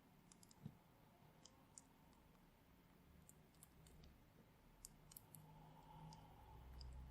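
Faint, scattered small clicks and pops from slime with Orbeez water beads being handled, coming at irregular moments.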